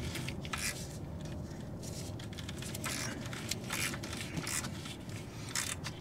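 Corvette lowering bolt being turned down through its new cushion, giving short scrapes at irregular intervals.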